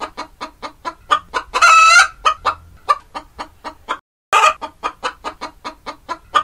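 Chicken clucking in quick, even beats, about five a second, broken twice by a drawn-out squawk. The clucking cuts out dead for a moment about four seconds in and then starts over, as a looped clip does.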